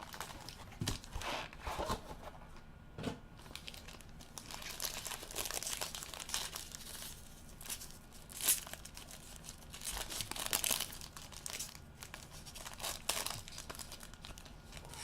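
Trading card box packaging being torn open and its wrapping crinkled by gloved hands, in irregular crackling bursts.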